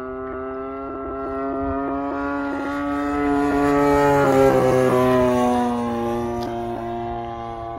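Engine of a radio-controlled aerobatic model plane making a fly-by: a steady, pitched drone that grows louder to a peak about halfway through, then drops in pitch and fades as the plane passes and flies away.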